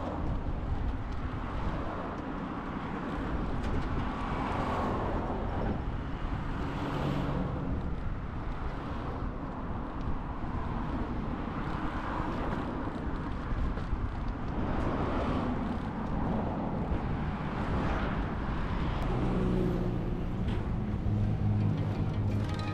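Outdoor roadside sound of traffic passing, with cars swelling up and fading every few seconds, over a low gusty rumble of wind on the microphone.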